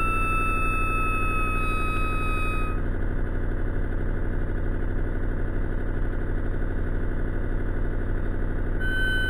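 A sleeping hummingbird's squeaky 'snore' slowed to a quarter of its speed: a long, thin whistle-like tone that slowly falls in pitch and stops about three seconds in, then starts again near the end. Under it runs a steady low rumble of slowed-down background noise.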